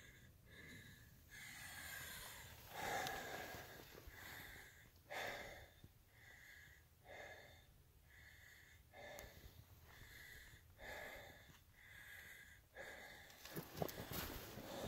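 A person breathing hard while climbing uphill, one breath about every second. Scuffing and rustling get louder near the end.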